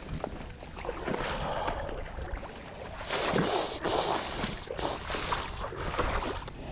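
Shallow water splashing and sloshing, with low wind rumble on the microphone. The splashing is strongest from about three to four and a half seconds in, and again briefly near the end.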